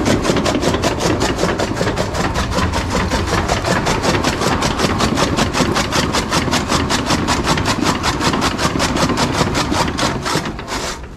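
Belt-driven electric-motor machine running, with a rapid, even clatter of about five or six beats a second that fades away near the end.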